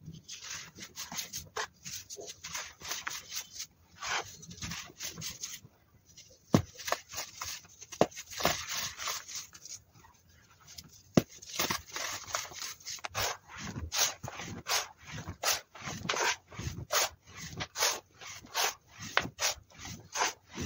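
Hands squeezing and raking through a pile of dry, crumbly baking soda, giving a dense, irregular run of soft crunches and crackles with a few sharper snaps as lumps break.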